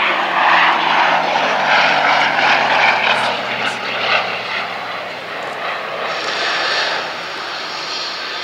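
Gloster Gladiator biplane's Bristol Mercury nine-cylinder radial engine in a flypast, its pitch falling over the first few seconds as it passes and draws away, then fading. A steady high hiss joins in about six seconds in.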